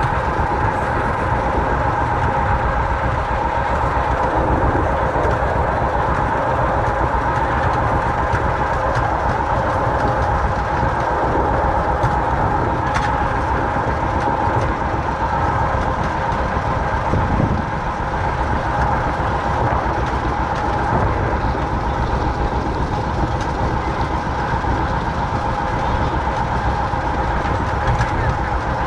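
Vintage John Deere tractor engine running steadily with a rapid low beat as it tows a wagon, heard from the wagon behind, with the wagon's running rattle mixed in.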